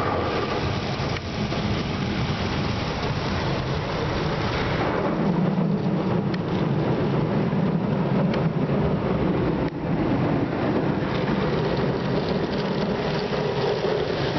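Rotating brushes of a Ceccato Vantage automatic car wash scrubbing over the car, with water spraying on the body, heard from inside the cabin as a steady, loud, rain-like wash noise that grows heavier for a few seconds in the middle as a brush passes over the side window.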